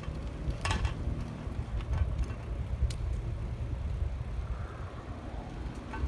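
Bicycle being ridden: a steady low rumble of wind and road noise, with a few sharp clicks and rattles, the loudest just under a second in.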